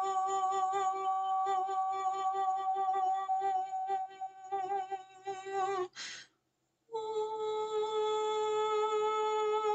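A woman's voice toning: a long held note with a slight waver, broken off about six seconds in by a quick breath and a short gap, then taken up again on a higher held note. It is the healing tone the angels are said to bring in to clear the listener's energy field.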